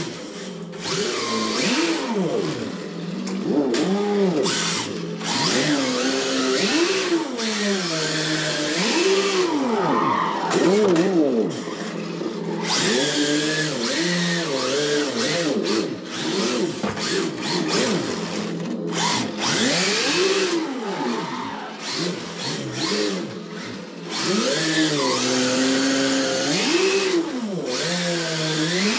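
Electronic RB26 straight-six engine sound from an RC drift car's sound unit, played through a small speaker and revving up and down over and over. Underneath are the whir of the car's brushless motor and the hiss of its tyres sliding on concrete.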